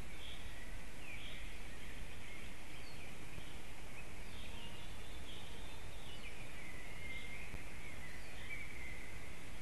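Small forest songbirds singing and chirping, with short phrases and trills repeating throughout, over a steady low rumble of wind.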